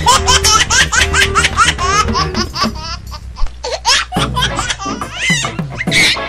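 High-pitched, child-like laughter in rapid repeated bursts over background music. The laughter pauses about three seconds in, then resumes.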